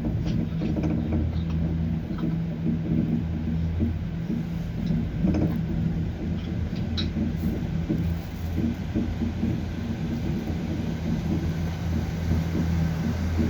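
Steady low drone of a moving vehicle heard from inside, with a constant low hum and road rumble.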